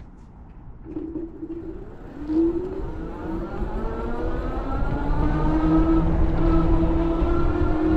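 Ariel Rider Grizzly e-bike's electric motor whining as the bike pulls away, rising in pitch while it gathers speed and then holding a steady tone, over a low rumble of wind and tyres on the road.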